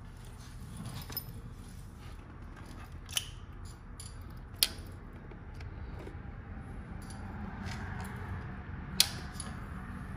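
Sparse small metal clicks and clinks of a bolt and an Allen key being handled as a frame-slider bolt is threaded in by hand, three sharp ones standing out, over a low steady hum.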